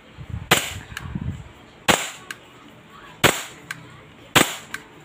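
Gas blowback airsoft Glock pistol (WE standard unit) firing four single shots through a chronograph, about one every 1.3 seconds, each a sharp crack, with a much fainter click shortly after most of them.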